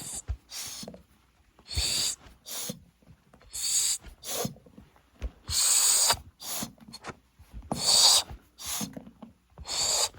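Short airy whooshes close to the microphone, one about every two seconds, with soft clicks between them.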